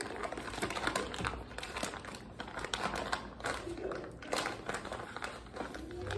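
Plastic tissue packet crinkling as tissues are pulled out of it: an irregular run of crackles and rustles.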